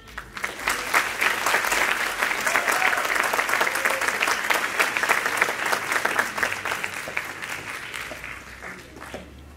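Audience applauding as the music ends, starting at once, full for several seconds, then thinning and fading out near the end.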